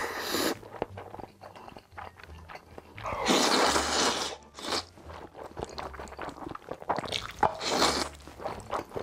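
Close-miked eating: wet chewing and crunching with many small mouth clicks, broken by two long, loud slurps of black-bean-sauce noodles being sucked in, about three seconds in and again near the end.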